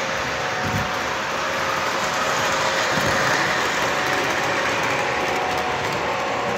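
Electric toy trains running on the track: a steady rolling rattle of wheels on the rails with a faint motor hum, a little louder from about two seconds in as a train passes close by.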